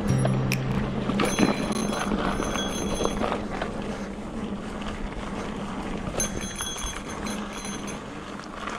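2020 Trek Fuel EX 5 full-suspension mountain bike being ridden along a dirt trail: steady tyre and ride noise with the bike rattling over the ground.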